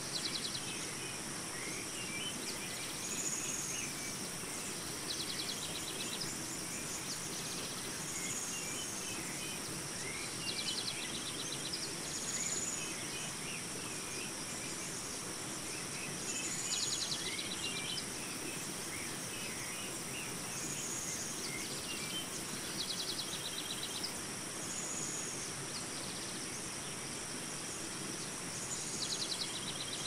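Forest ambience: a steady high-pitched insect drone, with a bird repeating a short arched call and a rapid trill every few seconds, and scattered soft chirps.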